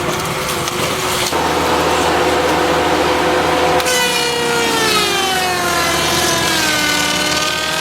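A large land-clearing wood grinder with a 600-horsepower engine, chewing through wood with a steady mechanical drone. From about four seconds in, its whine drops slowly in pitch.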